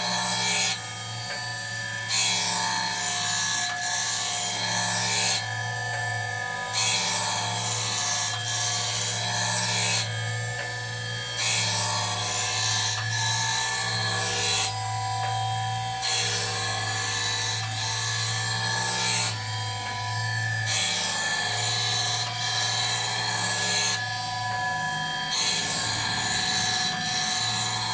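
Powered sharpener grinding the blade of a tatami-making machine: a steady motor hum under a high grinding hiss that comes in passes of about 3 to 4 seconds with short breaks between, about six times.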